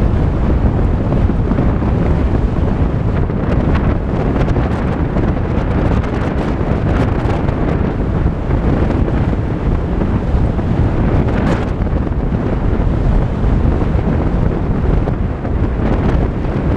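Steady rumble of a Volkswagen Tiguan driving on a dirt road, tyre and road noise mixed with wind on the microphone, with a few faint clicks along the way.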